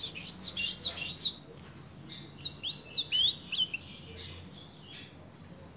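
Ultramarine grosbeak (azulão) singing: two phrases of quick whistled notes sliding up and down, the second starting about two and a half seconds in.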